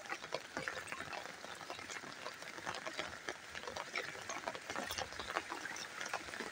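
Rain falling steadily onto standing water on a flooded concrete rooftop: a dense, even patter of small drop hits.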